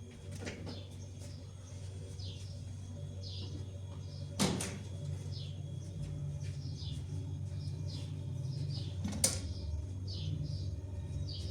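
Small birds chirping repeatedly in short falling chirps over a steady low hum, with two sharp knocks, about four and a half and nine seconds in.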